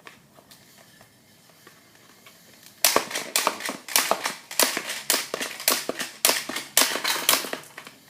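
Crossfight B-daman toy marble launcher shooting plastic marbles in quick succession: a fast run of about fifteen sharp plastic clacks, roughly three a second, starting about three seconds in and stopping shortly before the end.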